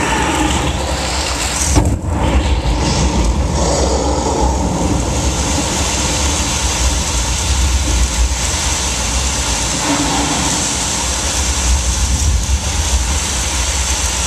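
Loud, steady low rumble with a hiss over it from the live arena dinosaur show's sound, with a brief jolt about two seconds in.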